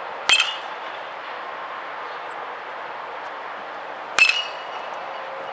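Metal baseball bat hitting a ball twice, about four seconds apart, each contact a sharp ping with a brief ring.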